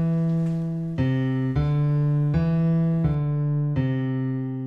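Background music: an electric piano playing slow, held notes, changing about once a second, the last note held and starting to fade near the end.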